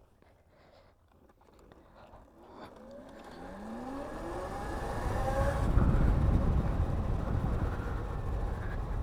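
Electric scooter motor accelerating: its whine climbs steadily in pitch from about three seconds in. Then rushing wind and road noise grow loud and stay steady as it runs at speed.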